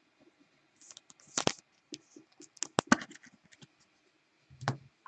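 Trading cards and a foil card pack being handled: a quick run of crisp clicks and papery rustles, then a single dull knock near the end.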